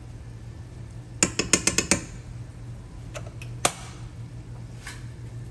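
A metal spoon clinking against a cooking pot: a quick run of about six taps a little over a second in, then a few single clinks.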